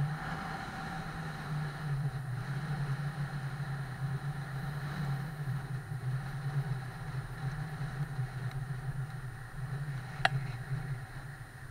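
Steady wind and road noise from a camera moving alongside a road bike at riding speed, with one sharp click about ten seconds in.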